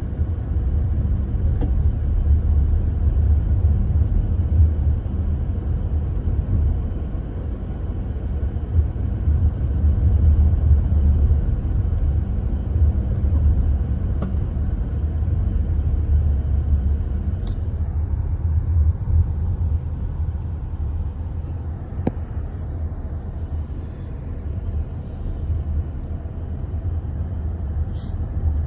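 Steady low rumble of a car on the move, with engine and tyre noise heard from inside the cabin.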